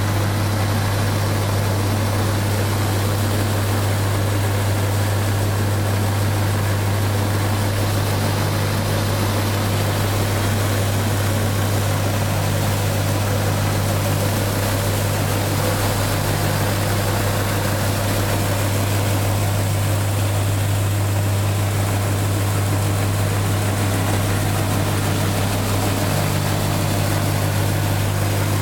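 KMG-style belt grinder running steadily: a strong, even motor hum under the hiss of the abrasive belt, with no change in speed.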